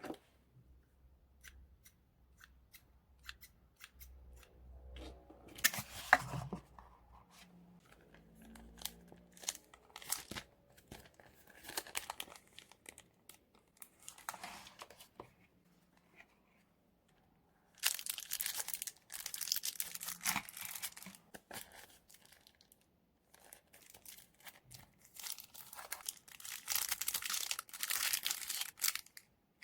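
Paper and washi tape being handled, peeled and torn for a journal page: scattered small clicks and taps, then longer stretches of crackly tearing and crinkling, the longest in the second half.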